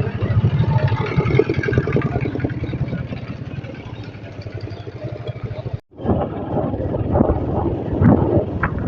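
A motor vehicle's engine running close by, a low rumble with a fast even pulse. The sound cuts out abruptly about two-thirds of the way through and comes back rougher and gustier.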